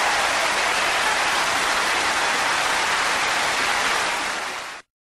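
Large concert audience applauding, a dense, steady clapping that fades slightly and then cuts off abruptly near the end.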